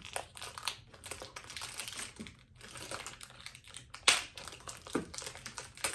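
Perfume box and bottle being handled: a run of light clicks, taps and cardboard rustles, with one sharp click about four seconds in.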